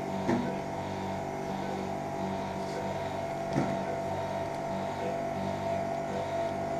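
Steady hum of operating-room equipment, several constant tones held without change, with two brief soft knocks, one just after the start and one about three and a half seconds in.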